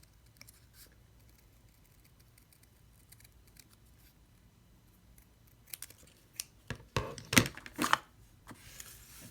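Thin cardstock being cut with a hobby knife and handled: faint scratching at first, then a burst of louder sharp cuts and paper rustles about six to eight seconds in.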